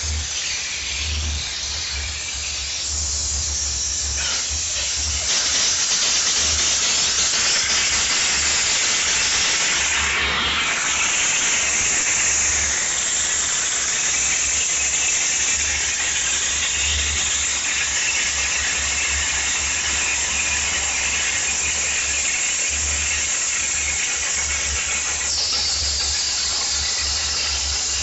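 High-pressure gun of a battery-driven, diesel-heated steam cleaner jetting hot water, a continuous loud hiss over a low steady drone from the machine. The jet gets louder about five seconds in, and a sharper high squealing hiss joins about ten seconds in.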